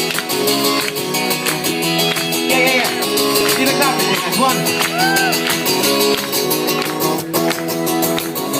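Live acoustic guitar strummed in a brisk, steady rhythm, with short high calls sliding up and down over it twice in the middle.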